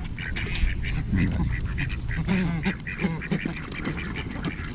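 A crowd of ducks quacking, many short overlapping calls, while they jostle for bread being handed out.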